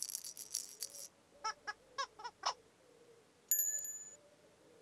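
Whimsical children's-TV sound effects. A brief shimmering burst at the start, then about five short, squeaky pitched chirps, and past the midpoint a bright bell-like ring that fades away.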